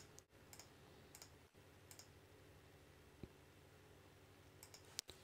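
Near silence broken by a few faint computer mouse clicks, the sharpest near the end.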